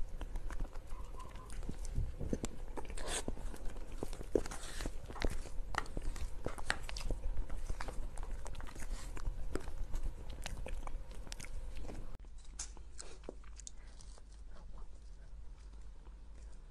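Close-miked eating sounds of soft cream cake: wet mouth clicks and smacks while chewing, with a spoon scraping and tapping inside a plastic cup. About twelve seconds in the sound drops quieter and the clicks grow fainter.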